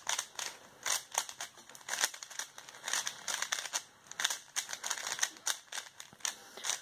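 MoYu AoLong v1 3x3 speedcube being turned fast by hand, its plastic layers and M slice clacking in a rapid, irregular run of clicks.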